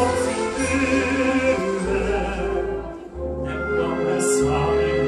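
Live orchestra accompanying a classically trained male singer. Sustained sung and played notes ride over a bass line that moves about once a second, with a brief drop in loudness about three seconds in.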